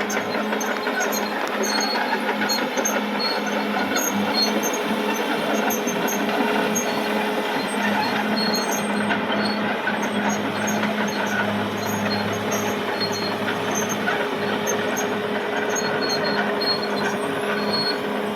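Caterpillar D6R XL bulldozer working: its diesel engine runs steadily, with a steady mechanical hum and whine over a dense clattering noise.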